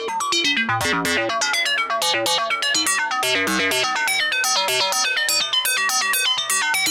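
Sonicware ELZ_1 synthesizer playing its four-operator FM synth engine: a fast sequence of short, bright, plucked-sounding notes, several a second, with lower bass notes underneath.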